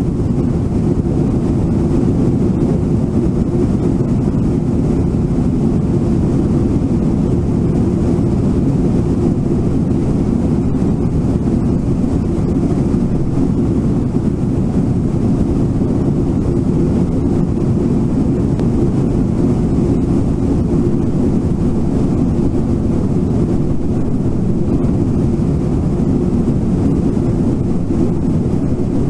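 Steady low rushing of the Brooks River's fast-flowing water, with no separate events standing out.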